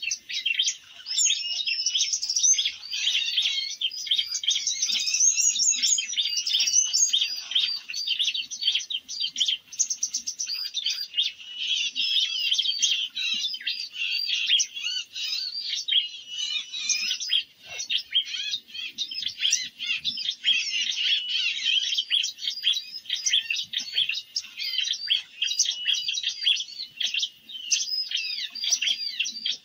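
Many small songbirds chirping and twittering rapidly and without pause, a dense high-pitched chatter.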